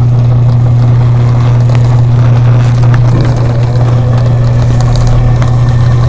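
LG Turbo Drum washing machine's drain pump running with a loud, steady hum. The pump is starting to fail: its shaft has begun to stick, so it sometimes catches and sometimes does not.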